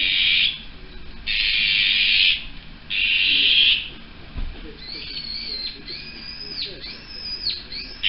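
Azure-winged magpies calling: three harsh, raspy calls about a second long, then several thinner calls that swoop up and down in pitch.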